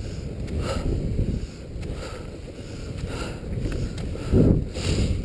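Skate skis sliding on a packed snow trail with wind on the microphone, in a rhythm of about one stroke a second, and two louder rushes near the end.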